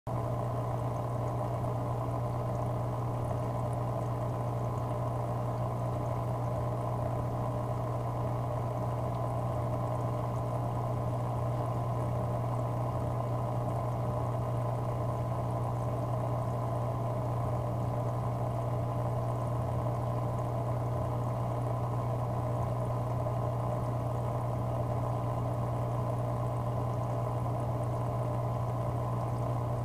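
Aquarium equipment running steadily: a low hum with water moving.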